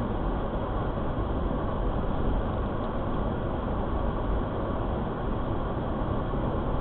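Steady road and engine noise of a moving vehicle, an even rumble with no breaks or changes.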